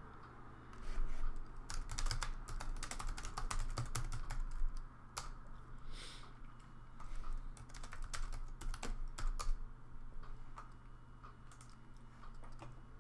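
Typing on a computer keyboard: a run of irregular key clicks, busiest from about a second in until near the end, over a faint steady low hum.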